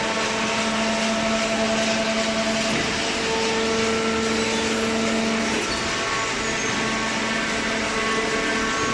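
Hydraulic vertical cardboard baler running: a steady mechanical hiss with a droning whine from its motor and pump, the tone of the whine shifting around the middle.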